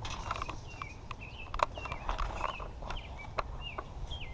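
Birds chirping, a quick run of short, bending chirps repeated every half second or so, with scattered sharp clicks and a low steady rumble underneath.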